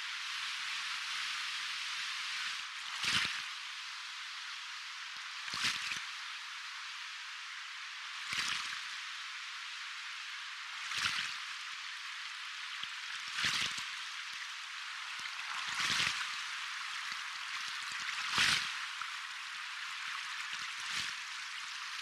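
Soft ocean waves: a steady high hiss of water, with a gentle surge of a small wave washing in about every two and a half seconds.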